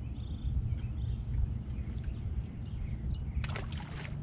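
Uneven low rumble of wind and water at a microphone just above the water's surface, with a few faint bird calls. There is a short noisy burst about three and a half seconds in.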